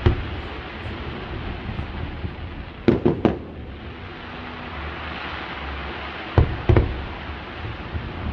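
Fireworks display: aerial shells bursting with sharp bangs in groups of two or three, about every three seconds, over a steady noisy background between the bursts.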